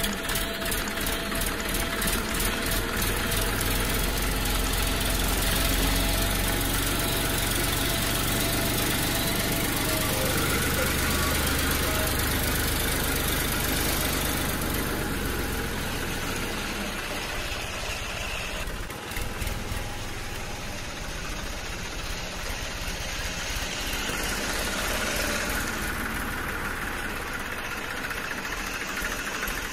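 Diesel tractor-style engine running steadily, with a low knocking beat.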